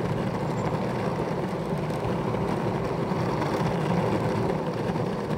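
Wowgo electric skateboard rolling along a tarmac path: a steady rumble of the wheels on the surface.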